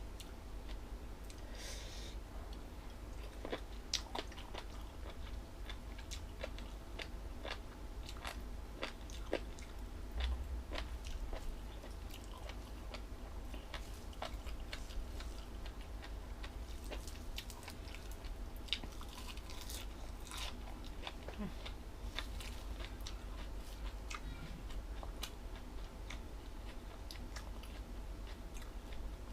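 Close-up chewing and biting of crunchy jellyfish salad, with many short, crisp crunches scattered throughout. A low steady hum sits underneath.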